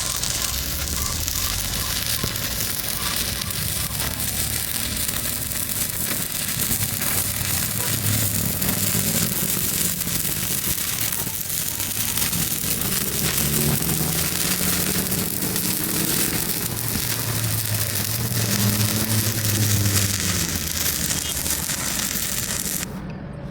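Welding arc crackling and hissing steadily while a bead is run, cutting off suddenly near the end as the arc is broken.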